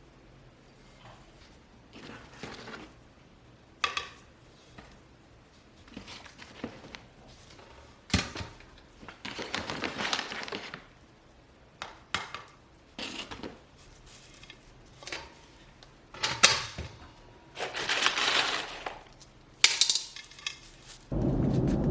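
Dishes and utensils clinking and knocking, in scattered short clicks with a few longer swishing, scraping passages. A loud steady rushing noise starts suddenly just before the end.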